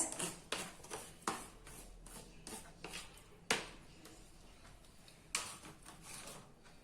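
Kitchen handling: barley grits being tipped into a cooking pot with faint rustling, and a few sharp taps of a container or utensil against the pot.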